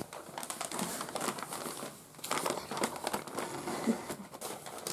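Gift wrapping paper crinkling and rustling in irregular crackles as a wrapped present is handled and unwrapped, easing off briefly about two seconds in.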